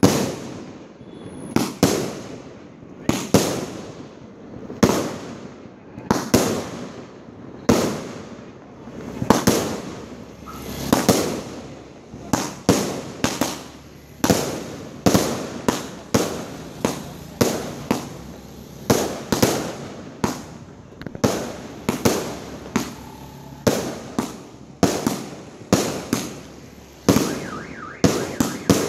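A 250-shot fireworks cake firing shot after shot. Each shot is a sharp bang that trails off. The bangs come about every second and a half at first, then quicken to more than one a second about halfway through. A faint pulsing tone joins near the end.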